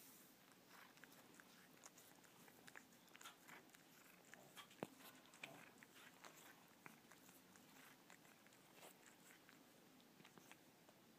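Faint scattered wet clicks and smacks of a cat licking and nibbling a person's thumb.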